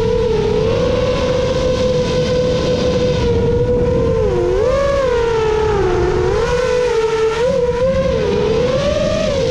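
Whine of a 7-inch FPV quadcopter's Emax Eco II 2806.5 motors spinning HQ 7x3.5x3 propellers, heard from onboard the drone. The pitch dips and rises several times as the throttle changes, over a steady rush of wind noise.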